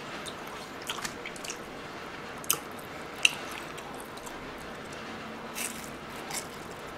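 Close-miked eating sounds: scattered soft clicks and wet mouth noises over a steady faint hiss, with a bite into a fried seaweed roll (gimmari) coated in jjajang sauce near the end.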